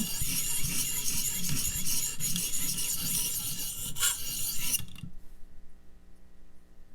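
A 600-grit sharpening stone on a guided-angle sharpener rasping back and forth along a WE Banter pocket knife's steel edge, about two strokes a second, stopping about five seconds in. These are test passes to see where the Sharpie marker wears off the bevel at the newly lowered angle.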